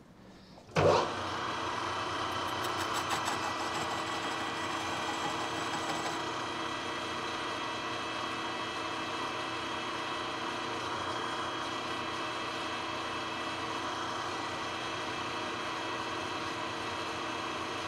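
Manual metal lathe running steadily, a boring bar with a carbide insert cutting heavy-wall steel tubing. The sound comes in suddenly with a sharp knock about a second in, then holds as an even machine hum made of many fixed tones, with a fine crackle of cutting for a few seconds.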